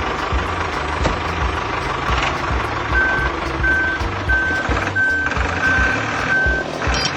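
A vehicle's reversing alarm beeping six times in a steady rhythm, starting about three seconds in, over a running engine and background music with a steady beat.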